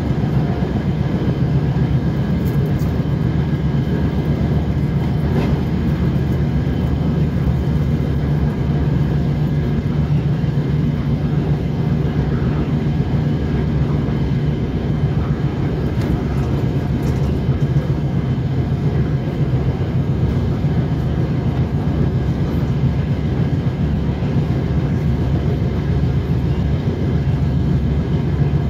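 DR1A diesel multiple unit running at speed, heard from inside the carriage: a steady low drone of the diesel engine and running gear, with no change in pace.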